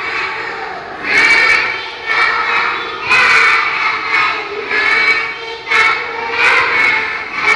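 A group of young children singing loudly together in unison, in short rhythmic phrases about one a second.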